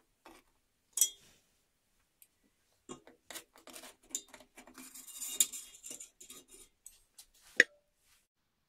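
Metal clinking and scraping as a screwdriver pokes a steel shuriken against the bottom of a stainless steel pot of vinegar: a sharp clink about a second in, a busy run of taps and scrapes from about three seconds to seven, and one loud clink near the end.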